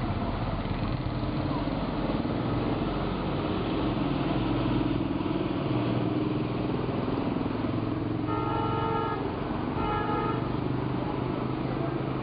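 Road traffic with a vehicle engine running steadily, and a vehicle horn honking twice, about eight and ten seconds in.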